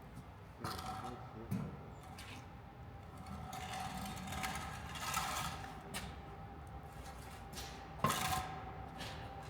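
Heavy metal parts knocking and clunking as a loader axle is rolled out, with the loudest knock near the end, over a faint steady whine and some hiss.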